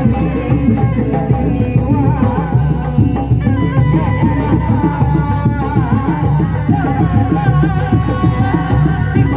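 Live Sundanese reak (kuda lumping) folk music: continuous dense drumming with a high, wavering melody line over it.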